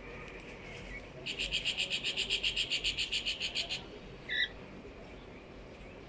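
A bird's rapid trill of about eight high notes a second, lasting about two and a half seconds, followed by one short chirp.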